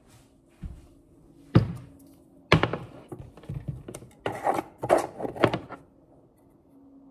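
A few sharp knocks, then a glass mason jar's metal screw-on lid being twisted off: about three seconds of scraping and clinking.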